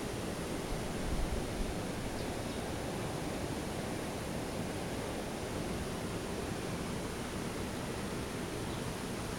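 Steady, even rushing noise of outdoor background, with no distinct events apart from a brief low rumble about a second in.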